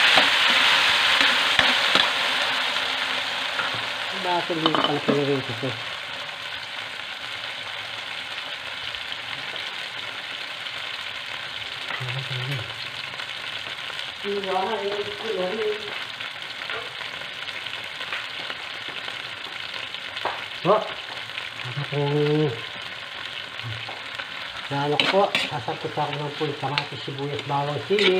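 Chopped tomatoes, onions, garlic and chili sautéing in hot oil in a steel wok. They sizzle strongly at first, then settle within a few seconds into a steadier, quieter sizzle. Near the end a metal ladle scrapes and knocks against the wok as the vegetables are stirred.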